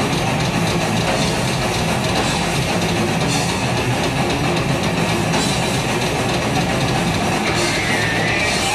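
A death metal band playing live: heavily distorted electric guitars over drums, loud and dense with no breaks.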